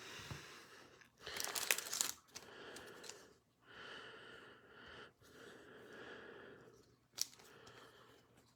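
Plastic trading-card sleeve and top loader being handled, rustling and crinkling as a card is slid in, with a louder crinkle about a second in and a short click near the end.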